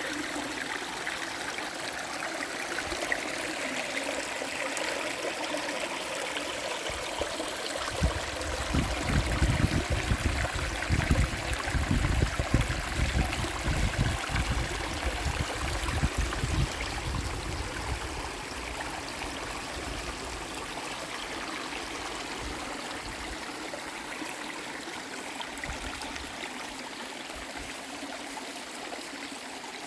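River water flowing with a steady rush and trickle. From about 8 to 17 seconds in, irregular low thumps and rumbles come in over it.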